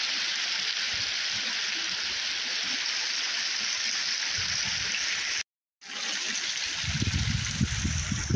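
Snowmelt runoff running steadily in a stream down a thawing road, a smooth rushing hiss. It cuts out for a moment a little past halfway, then comes back with low, uneven rumbling underneath near the end.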